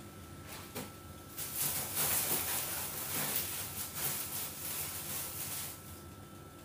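Black plastic rubbish bag rustling and crinkling as leftovers are scraped off a plate into it, from about a second and a half in until shortly before the end, with a couple of light clicks before it starts.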